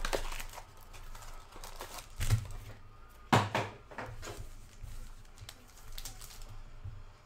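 Foil-wrapped trading card packs and their cardboard box being handled: crinkling and rustling in several short bursts, the loudest a little over three seconds in.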